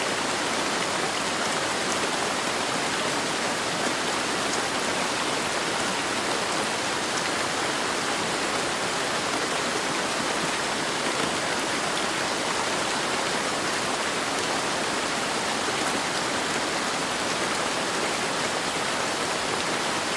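Steady heavy rain, an even hiss of rainfall with faint scattered drop ticks.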